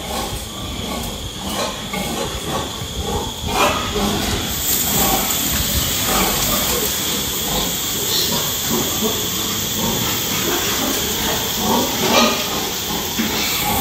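Pigs grunting and shuffling in a pen. About four and a half seconds in, a loud steady hiss starts and continues.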